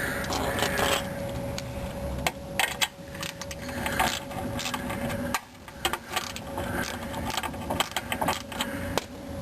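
Irregular metallic clinks and rattles of hand tools being worked on the lower mounting bolt of a car's rear shock absorber, over a faint steady hum.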